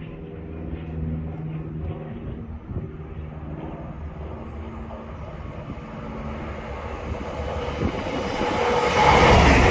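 Diesel train approaching: a steady engine hum holding one pitch, growing much louder over the last couple of seconds as the train draws near.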